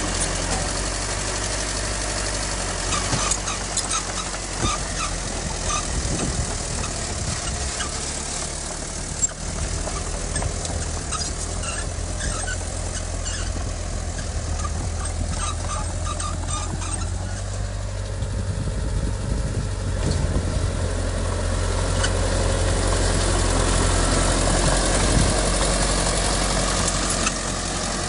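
Heavy diesel earthmoving machinery running steadily, a low engine drone with scattered clanks and a sharp knock about a third of the way in, getting somewhat louder near the end.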